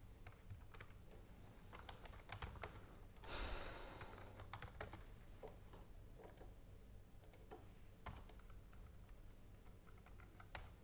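Faint computer keyboard typing: scattered key clicks, with one louder rushing noise lasting about a second a little over three seconds in.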